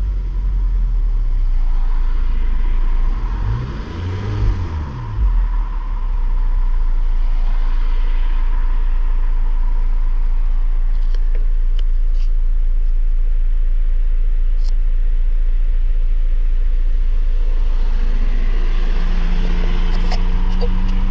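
Opel Vectra C's Z22YH 2.2-litre four-cylinder petrol engine idling steadily. About four seconds in there is a brief whine that rises and falls, and a steady humming tone joins near the end.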